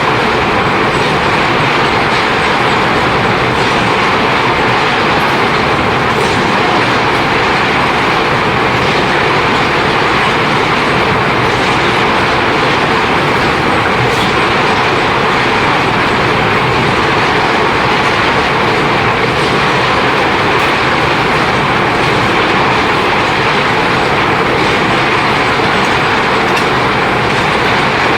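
Motor-driven gold-ore milling machinery running steadily: a loud, continuous rattling din that does not change.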